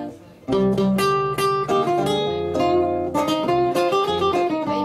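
Solo acoustic-electric guitar playing, plucked single notes and chords in a melodic passage. It stops briefly just at the start and comes back in about half a second in.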